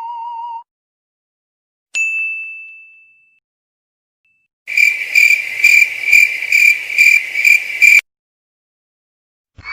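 Sound effects: a single bright ding that rings out for about a second, then after a pause a high electronic beeping that pulses about three times a second for some three seconds and stops suddenly.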